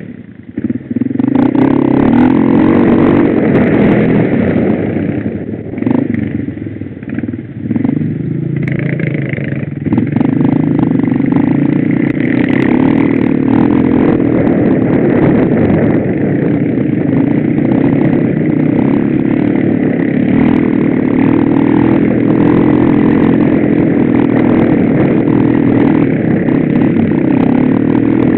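Quad (ATV) engine running under way on a rough dirt trail, heard close from the machine itself. The throttle eases off and comes back a few times in the first ten seconds, then the engine holds a steady pull.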